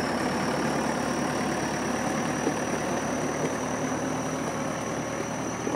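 Massey Ferguson tractor's diesel engine running steadily under load as it pulls a cassava-root digger and cage trailer slowly through the field.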